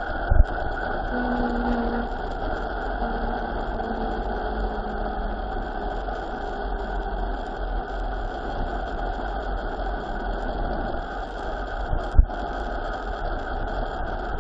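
Steady rushing, engine-like noise, with a few short low knocks at the start and one about twelve seconds in.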